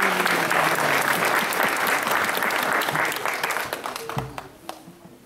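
Audience clapping, dying away about four seconds in, with a brief voice over the start.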